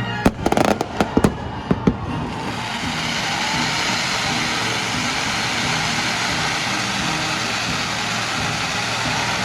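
Fireworks going off: a quick string of sharp bangs in the first two seconds as the orchestral music dies away, then a steady, dense rushing crackle.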